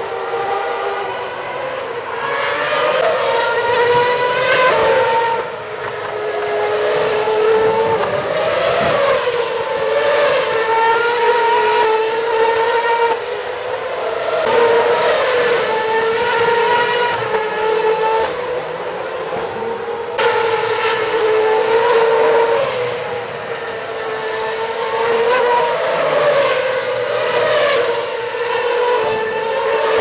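2010 Formula One cars' 2.4-litre V8 engines at high revs, car after car accelerating past. The pitch climbs in steps and drops back over and over, the upshifts and downshifts of cars pulling out of a slow corner and braking into it.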